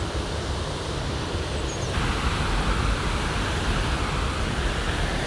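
Steady rushing of water pouring over a river weir, with wind rumbling on the microphone. The sound steps up, louder and fuller, about two seconds in.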